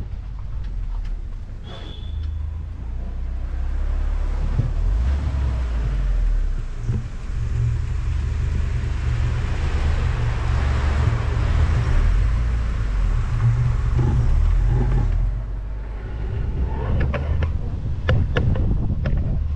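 Open-top Moke car driving, its engine rumble mixed with rushing wind and road noise on a microphone held high above the car. The rushing noise builds through the middle as the car picks up speed, eases off a few seconds before the end, and a few light clicks follow.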